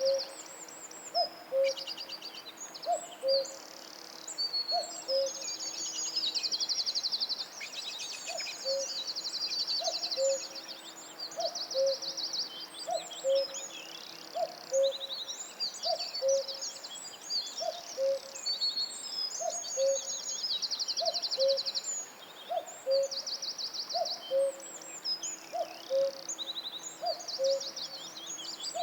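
Tropical forest bird chorus: a low, short call repeats steadily about once a second, under many high-pitched chirps and fast trills from other birds.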